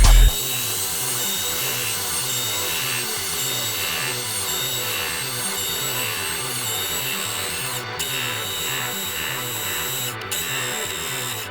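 Metal lathe turning a steel disc: a steady machine whine with a regular low pulsing of about three beats a second.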